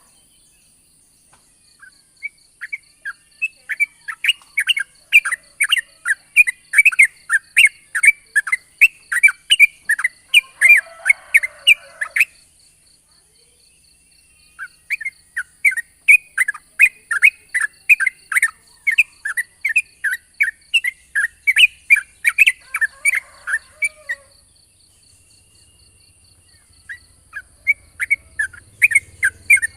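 Yellow-vented bulbul singing long rapid runs of short sharp notes, about five a second, in three bouts separated by pauses of a couple of seconds.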